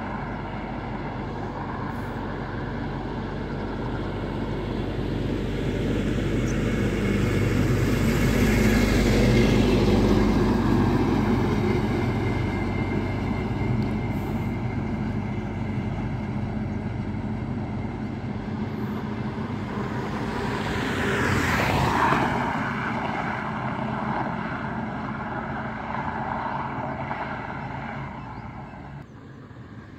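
Highway traffic going past: a loaded dump truck's engine drones by, loudest about nine or ten seconds in, and another vehicle passes more quickly with tyre noise a little after twenty seconds.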